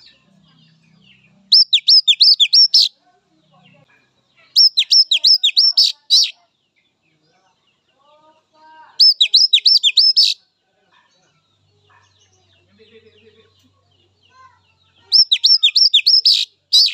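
Oriental magpie-robin calling in four bursts spaced a few seconds apart, each a quick run of about five sharp, downward-slurred whistled notes.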